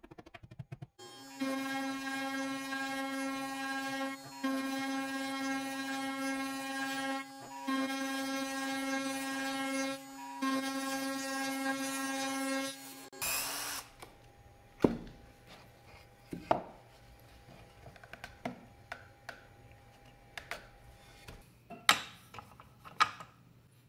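CNC router spindle running with a steady high whine as its bit hollows a round yew blank, the sound dipping briefly about every three seconds. Near the middle the cutting stops with a short rushing burst, and after that come a handful of sharp knocks and clicks as the wooden blank is handled and fitted into a lathe's metal chuck.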